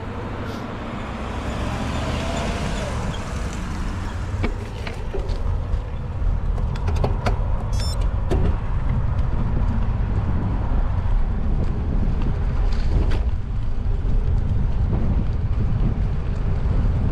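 Wind buffeting the camera's microphone along with tyre noise from a gravel bike riding on paved trail. The rumble grows steadily louder over the first six seconds or so, then holds, and a few faint clicks sound through it.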